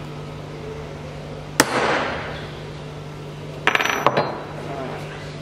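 One sharp hammer blow on a steel centre punch, marking the centre of the chainsaw bar nose rivet, with a metallic ring after it. About two seconds later, a quick rattle of small metal clinks as the punch is laid down on the bench.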